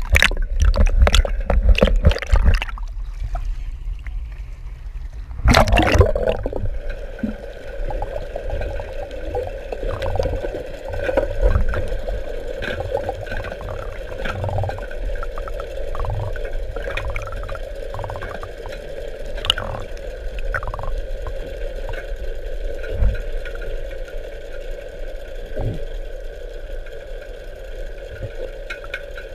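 Water sloshing and gurgling over a steady mechanical hum, after a loud rush of noise about six seconds in.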